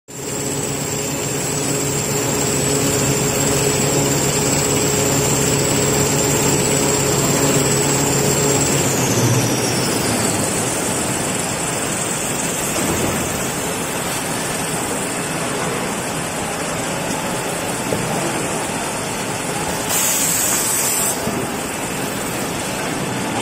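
Kitchen towel paper rewinding line running: a steady din of motors and rollers. A high whine and a low hum drop away about nine seconds in, the whine sliding down in pitch, and a short sharp hiss comes near the end.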